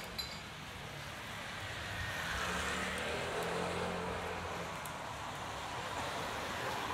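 A motor vehicle passing on a rain-wet street: a low engine hum with tyre hiss that swells about two seconds in and then slowly fades.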